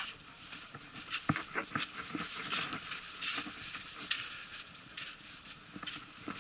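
Footsteps and trekking-pole tips striking beach sand at walking pace, an irregular patter of short knocks.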